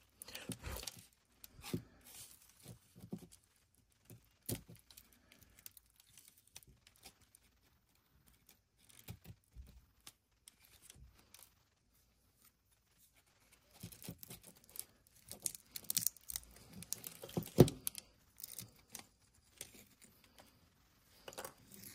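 Razor blade scraping and prying at a slab of thinly layered sedimentary rock, with thin flakes cracking and lifting off in irregular scratches and clicks. They are sparse for much of the time, then busier and louder in the last third, with the sharpest snap about four seconds before the end.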